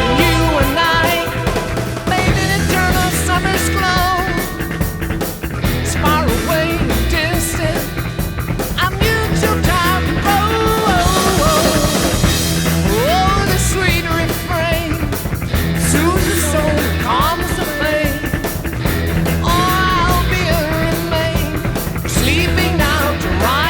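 Background music with a steady beat and a sung or lead melody.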